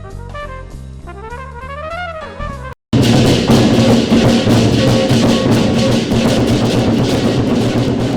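Brass music with a moving melody breaks off abruptly about three seconds in; after a split second of silence, louder music heavy with drums and percussion starts and continues.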